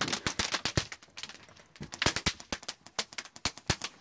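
Airsoft guns firing in rapid bursts of sharp pops and clicks, heaviest about the first second and again a couple of seconds in, then scattered shots.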